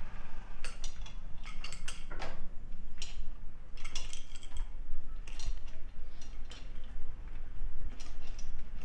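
Home gym multi-station worked through leg extensions: the machine's leg extension arm and cable mechanism give off irregular clusters of metallic clicks and clinks, over a low steady hum.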